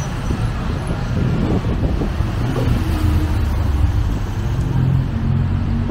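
Steady city road traffic, with the low hum of nearby motor vehicle engines running.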